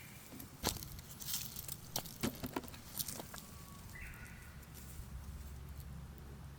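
Irregular sharp clicks and rustling from something being handled, most of them in the first three seconds, then a short bird chirp about four seconds in.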